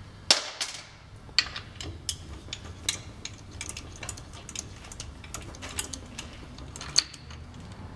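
Irregular metallic clicks and clinks of a hand wrench working on the housing of a Model A Ford transmission, sharpest about a third of a second in, near one and a half seconds, and again near the end.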